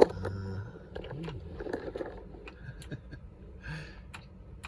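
A sharp click, then a scattered series of small clicks and taps with soft handling noise and a brief low murmur.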